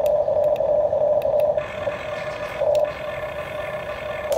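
Electric gear motors of a Huina RC toy excavator whining steadily as the boom and arm move, the tone shifting a couple of times as one motion stops and another starts, with a few light clicks.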